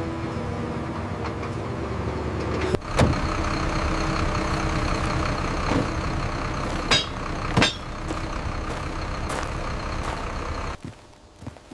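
Heavy vehicle engine running steadily, with a few sharp knocks about three seconds in and twice around seven seconds in. The engine sound drops away suddenly near the end.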